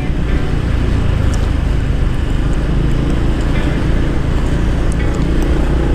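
Honda Forza 300 scooter's single-cylinder engine running steadily at low speed, with road and traffic noise around it.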